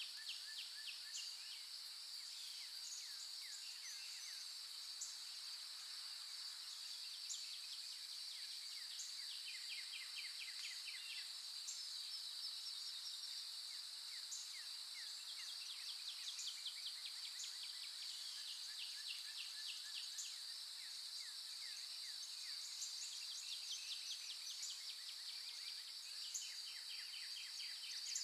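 Nature ambience: a steady high-pitched insect drone, with a short high chirp repeating about once a second and recurring bursts of rapid ticking trills.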